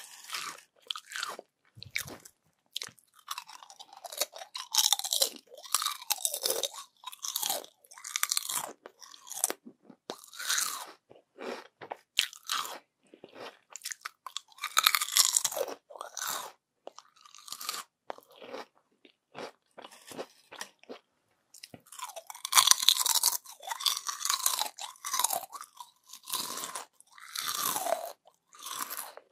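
Crispy yam chips crunched and chewed, bite after bite, in irregular bursts of crackling with short pauses between mouthfuls.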